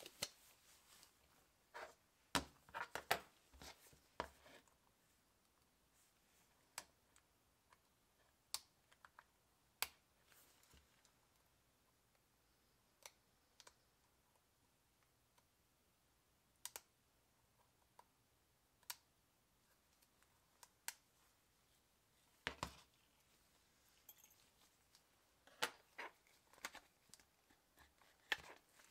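Scattered light clicks and taps of a first-generation Zune's casing being handled and pried apart with gloved hands, a cluster of clicks about two to four seconds in and another near the end, otherwise faint.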